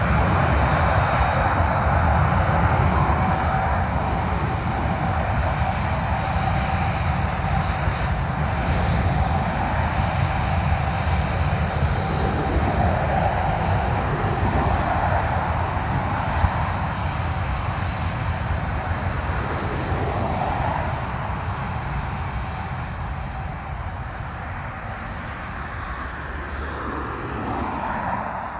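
Boeing 737-800's CFM56 jet engines running at taxi power while the aircraft moves along and turns on the runway: a steady whine over a low rumble, gradually fading as the aircraft turns away.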